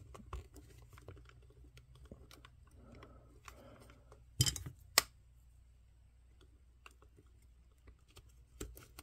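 Quiet handling noise: soft clicks and rustles of hands working and knotting the elastic cord inside a GI Joe figure's plastic lower body, with two sharper clicks about halfway through, over a faint low hum.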